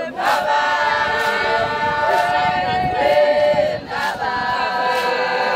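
A group of voices singing together in long held notes, with a short break about four seconds in.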